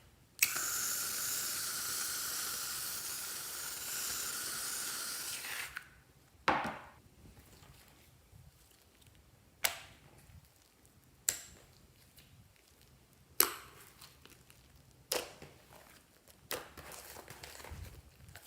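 An aerosol can spraying in one steady hiss for about five seconds, cutting off suddenly. Then come six sharp taps or clicks, spaced a second or two apart, each dying away quickly.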